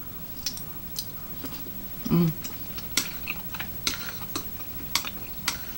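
Close-up mukbang chewing of chewy rice cakes: irregular sharp, wet mouth clicks and smacks, with a brief hummed "mm" about two seconds in.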